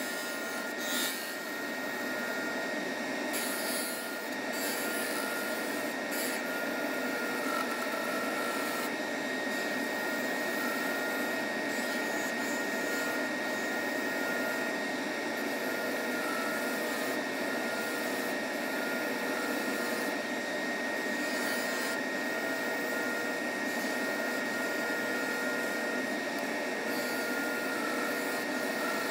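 Wood lathe spinning an end-grain, multi-species wood pen blank while a turning gouge cuts it: a steady high motor whine under the rasping scrape of the tool peeling shavings off the wood.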